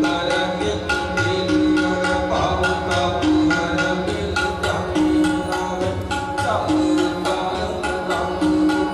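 Sikh kirtan: tabla playing a fast, steady rhythm under held harmonium-like notes, with voices singing in short phrases.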